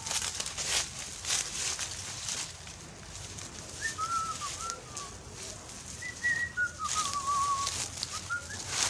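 Leaves and stems rustling as someone pushes through garden plants. From about four seconds in, a bird sings a run of short wavering whistled notes.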